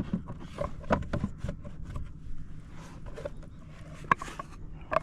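Scattered knocks, scrapes and clicks of a caught redfish being handled and measured aboard a kayak, with one sharp click about four seconds in.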